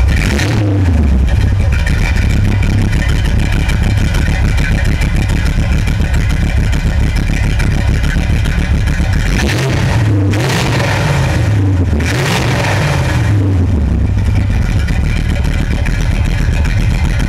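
A front-mounted 283 cubic-inch Chevrolet V8 idling steadily just after starting. It is revved and let fall back twice, about halfway through and again about two seconds later.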